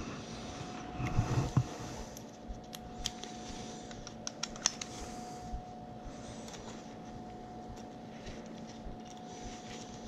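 Light clicks and scrapes of hand tools and small metal parts being handled, most of them in the first half, over a steady low hum.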